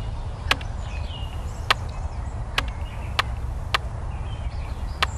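Axe chopping into a log: six sharp, irregularly spaced strikes on the wood, over a steady low rumble.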